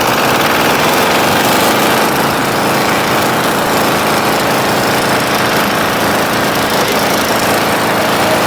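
Walk-behind double-drum vibratory road roller with a Greaves diesel engine running loud and steady, its drum vibration switched on at a high setting.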